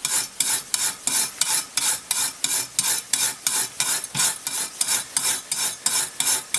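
Steel wire brush scrubbed back and forth over a circular saw blade's teeth, about four or five quick scraping strokes a second, to scrub off resin build-up.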